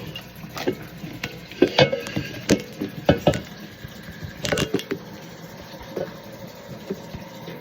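Irregular knocks, clatters and splashes of a cat being bathed: short sharp bumps, thickest through the middle of the stretch and thinning out toward the end.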